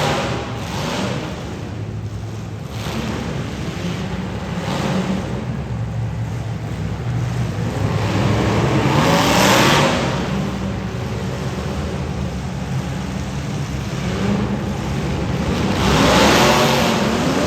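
Several demolition derby car engines running at once and revving hard, their pitch rising and falling. They rev loudest about halfway through and again near the end.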